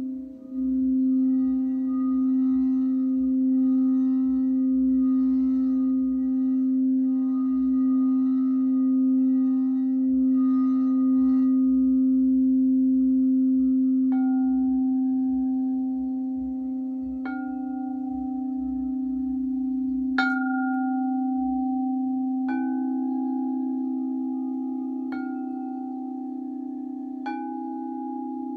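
Crystal chakra singing bowls: one bowl is sung by circling its rim, a steady low hum with a slow waver. About halfway through, bowls are struck about every two to three seconds, six strikes in all, each ringing on over the lingering hum.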